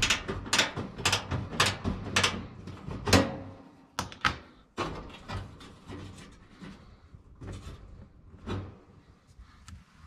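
Ratcheting wrench clicking as it backs out the screw holding a clothes dryer's heating-element housing: about two clicks a second for the first three seconds, then scattered clicks and knocks that grow fainter.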